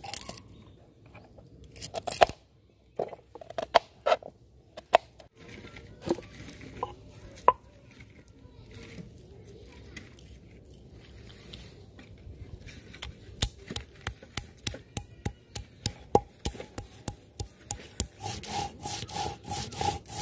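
A stone roller rubbed back and forth on a stone grinding slab (shil-nora), grinding cumin seeds into paste. From about halfway through the grinding strokes come in a regular rhythm, about two to three a second and closer together near the end. Before that there are scattered knocks and clicks of handling.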